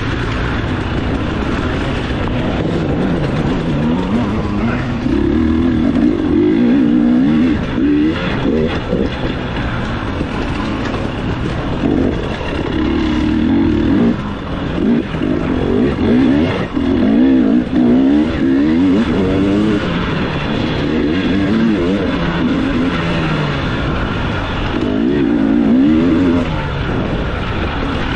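Off-road dirt bike engine ridden hard, heard up close, revving up and dropping back over and over as the rider works the throttle through a race course.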